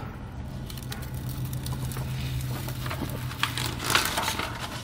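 Brown paper backing being peeled off the sticky side of an RV tank heater pad: a papery rustling and crinkling, with louder crackles near the end. A steady low hum runs underneath and stops shortly before the end.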